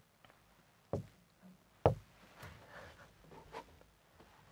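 Marker pen knocking against a whiteboard: two short sharp knocks about a second apart, the second louder, then a few faint soft sounds.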